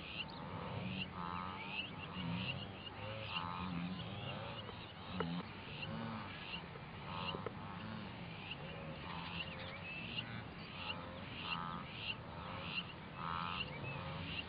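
A wildebeest herd calling with low honking grunts, under a higher animal call that repeats evenly about every three-quarters of a second and a warbling call about every second and a half.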